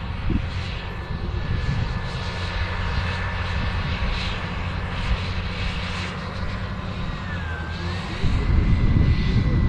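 John Deere 9RX 830 tractor's diesel engine running steadily under load, a low drone with a faint high whine over it, growing louder about eight seconds in.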